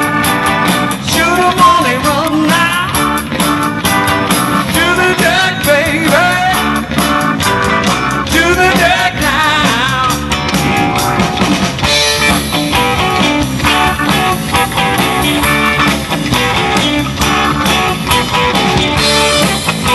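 Live rock band playing with electric guitars, keyboard and drums, and a woman singing. The singing stops about ten seconds in and the guitars carry on.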